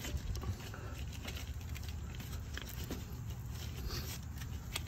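Faint handling noises, light scattered taps and rubbing, as a greased polyurethane sway bar bushing is slipped onto the sway bar, over a low steady background hum.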